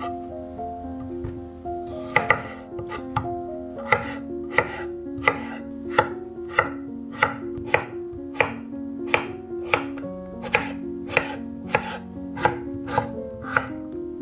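Chef's knife chopping peeled raw potatoes into cubes on a wooden cutting board: sharp, evenly paced knocks of the blade on the board, about one and a half a second, starting about two seconds in.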